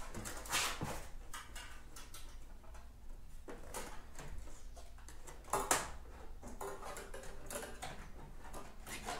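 Hands rustling and knocking about in a scooter's plastic front fairing while feeding a wire through, with scattered light clicks and two louder knocks, about half a second in and just before six seconds.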